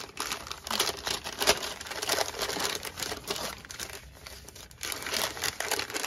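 Newspaper wrapping crinkling and rustling as it is pulled apart and unfolded by hand, in irregular handling noises with a short lull about two-thirds of the way through.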